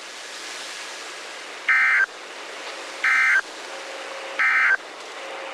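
Weather radio end-of-message signal: three short bursts of SAME digital data tones, evenly spaced about 1.3 s apart, over steady radio hiss. The bursts mark the end of the severe thunderstorm warning broadcast.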